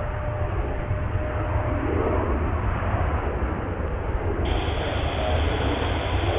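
Jet airliner engines running steadily, mixed with heavy wind buffeting the microphone.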